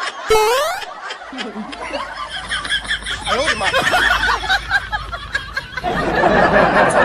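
Laughter and chuckling, opened by a quick rising whistle-like tone about a third of a second in.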